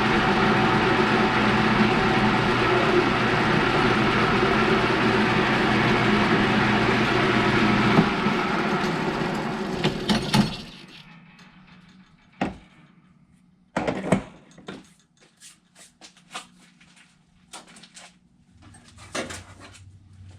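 Lathe running steadily, then switched off about ten seconds in and winding down to a stop. Afterwards come scattered sharp clicks and knocks.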